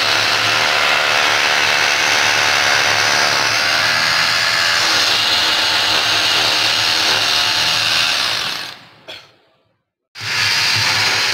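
Bosch Professional rotary hammer drilling into a concrete wall to bore holes for anchor bolts. It runs steadily, winds down and stops near the end, then starts again just before the end.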